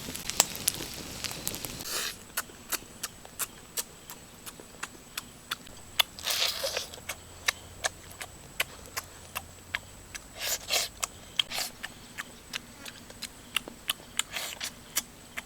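Wood fire crackling, with sharp irregular pops about two or three times a second over a low hiss, and a few short scraping noises.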